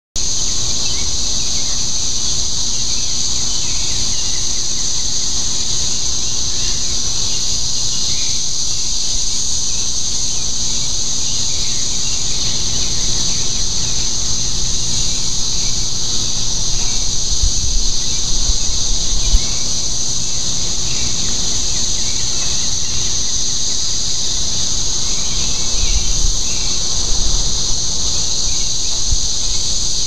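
Chorus of many periodical cicadas in the trees: a loud, steady, unbroken high-pitched drone. A few low rumbles of wind or handling on the microphone come through in the second half.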